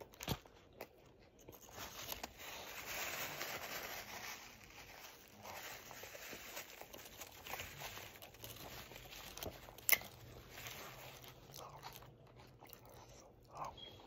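Close-up chewing and lip smacking on a mouthful of Whopper burger with onion rings inside, faint, with a few sharp clicks.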